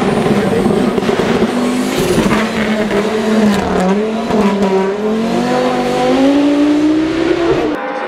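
Red Audi quattro hillclimb race car accelerating hard up the course. Its engine note dips slightly and then climbs steadily, and cuts off abruptly near the end.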